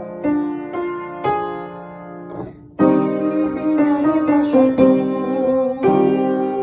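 Instrumental music played on a keyboard, slow sustained piano-like chords and melody notes. It dips quiet about two and a half seconds in, then comes back suddenly louder and fuller.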